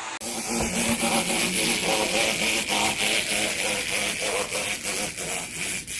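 Wind-up clockwork spring motor of a Speed Chopper 3-D desktop racer toy running, its plastic gear train whirring with a rapid, even clicking. It cuts off at the very end.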